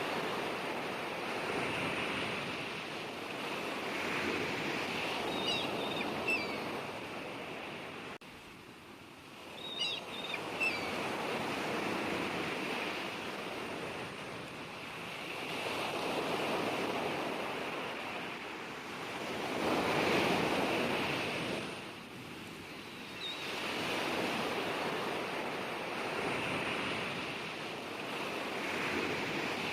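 Sea waves breaking and washing on the shore, swelling and fading every four to six seconds.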